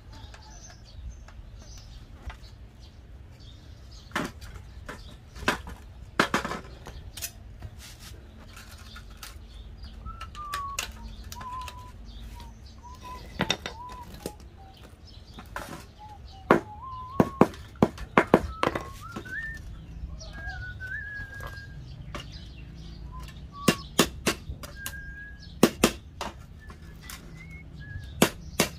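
Hammer striking the sheet-metal frame of an old gas stove in irregular, sharp metal taps, including a quick run of blows partway through, as its tabs are knocked into shape. A bird calls in the background with a thin, wavering whistle.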